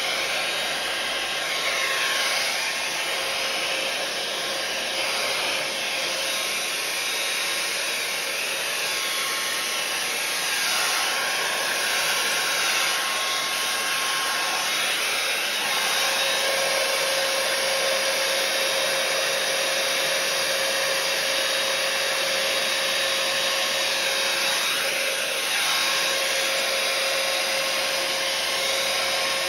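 Hair dryer running steadily, blowing wet acrylic paint across a canvas in a Dutch pour. Its steady whine grows a little stronger about halfway through.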